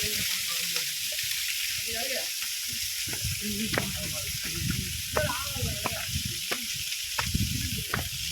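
Steady hiss of water falling at a small waterfall carrying little water, with faint distant voices and a few sharp clicks.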